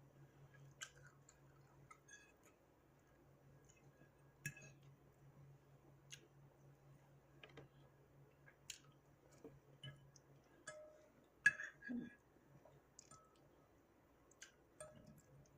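Faint scattered clicks and small taps of someone eating, mouth and utensil sounds, with a couple of louder clicks about eleven and a half seconds in. A low steady hum underneath stops about ten seconds in.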